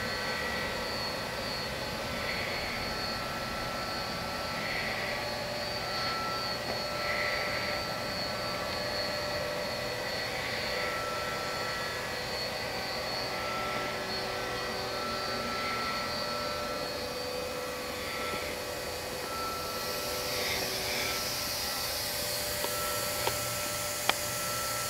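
Sharp SV-2412 CNC vertical machining center running under power: a steady mechanical whir with a few constant tones, and a soft hiss that comes back roughly every two seconds. A few sharp clicks come near the end.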